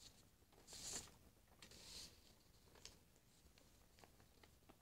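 Near silence with faint, brief rustles of paper signs being handled, about one and two seconds in, and a few light ticks.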